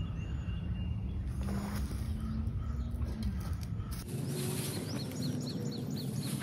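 Outdoor ambience: a low rumble with a faint steady drone that fades out about three seconds in. Near the end a bird sings a quick run of repeated high chirps.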